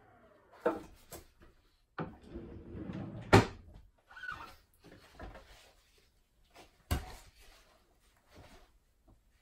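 Wooden knocks and clatters of a plywood strip being handled on a miter saw bench and against its fence, a few sharp knocks with scraping between them, the loudest a little over three seconds in. At the very start, the whine of the Makita sliding compound miter saw's blade falls away as it spins down.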